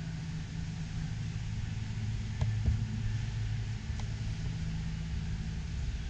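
Steady low hum of a large service garage's machinery or air handling, with a faint hiss over it and a few faint clicks about two and a half and four seconds in.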